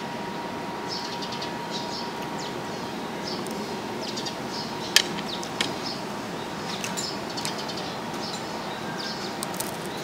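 Small birds chirping over a steady background hum, with a sharp tap about halfway through and a fainter one just after.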